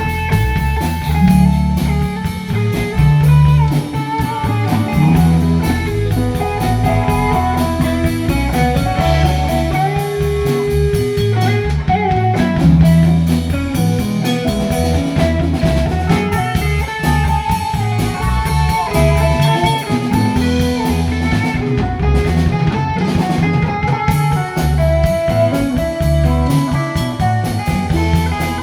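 Instrumental break of a rock song: an electric guitar plays a lead melody over bass and a drum kit keeping a steady beat.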